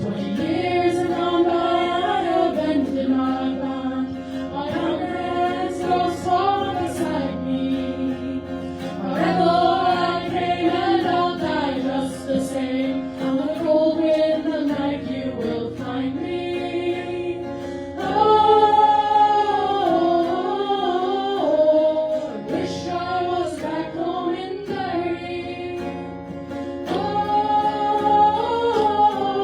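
Several voices singing a song together in harmony, in phrases of a few seconds each over a sustained low note.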